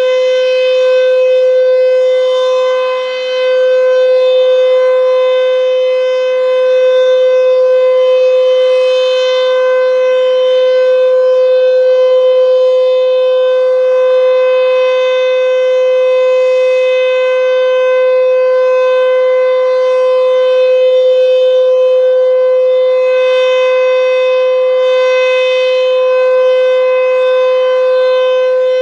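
Sentry 14V outdoor warning siren sounding a steady, unbroken tone at full pitch during a siren test. There is a brief dip in loudness about three seconds in.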